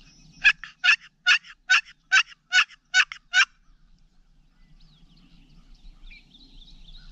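Wooden turkey box call run by hand in a series of eight raspy hen yelps, evenly spaced and loud, imitating a hen turkey to draw in a gobbler.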